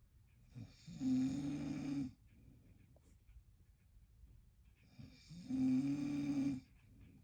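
A man snoring: two long, loud snores about four seconds apart, each lasting just over a second.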